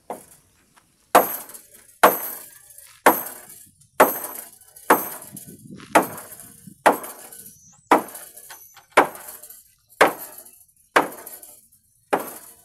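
A hammer striking nails into the timber decking of a wooden cabin floor, about one blow a second, a dozen blows in all, each with a short metallic ring.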